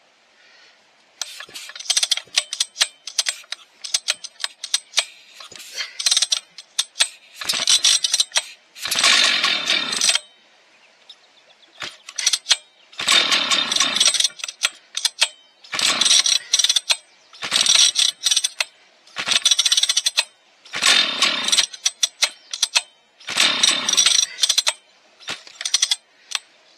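A rebuilt Husqvarna 1100 two-stroke chainsaw being pull-started over and over, about ten hard pulls of the recoil starter, each spinning the engine over in a rattling rush without it catching. It won't fire because the fuel tank is empty.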